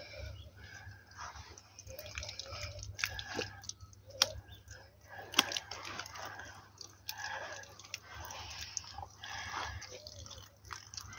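Water dripping and trickling from a brass garden tap as it is screwed onto its supply pipe by hand, with scattered sharp clicks from the metal fittings being handled.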